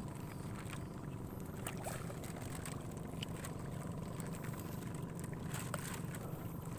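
Small wooden banca moving on open lake water: a steady low drone with scattered small knocks and clicks from the boat and the water.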